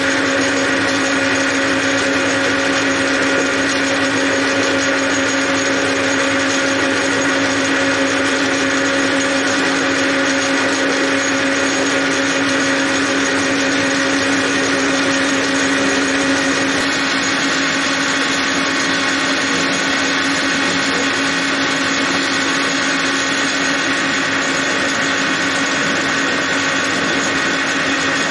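Gear-head metal lathe running at a steady speed, with a steady gear whine over the drive noise, while the turning tool cuts a metal part held close to the chuck.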